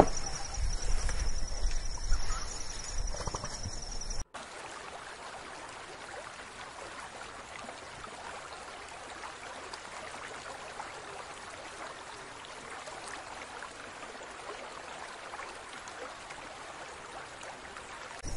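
Low rumbling noise with a faint steady high tone for about four seconds, then a sudden cut to a soft, steady hiss without any distinct events.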